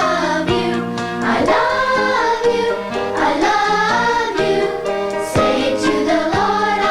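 Children's choir singing a praise song with instrumental accompaniment.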